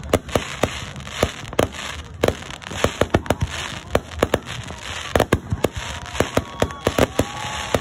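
Aerial fireworks display: an uneven run of sharp shell bursts, several a second, over continuous crackling.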